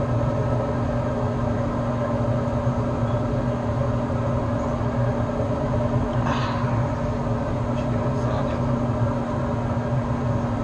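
A steady low mechanical hum with a constant tone running through it. A brief, higher-pitched sound comes about six seconds in.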